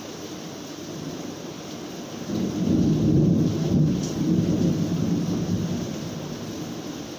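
Steady rain with a roll of thunder that swells about two seconds in, peaks, and rumbles away over the next few seconds.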